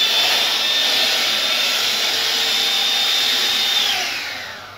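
Electric hand mixer running with a steady high whine, then switched off near the end, the whine falling as the motor spins down.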